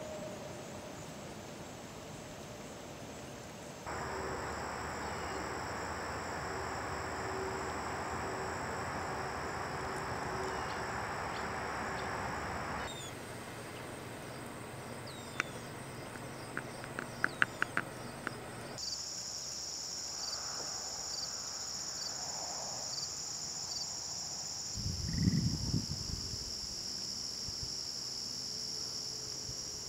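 Outdoor ambience in several short clips, with insects trilling in a steady high chorus through most of it. A quick run of sharp clicks comes about midway, and a brief low rumble near the end.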